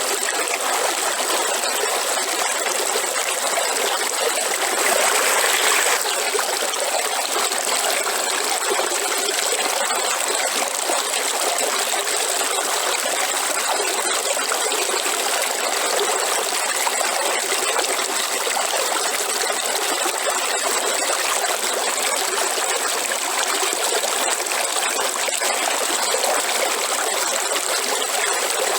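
River water flowing and trickling in a steady rush, with a brief louder surge about five seconds in. A thin, steady high-pitched tone runs over the water throughout.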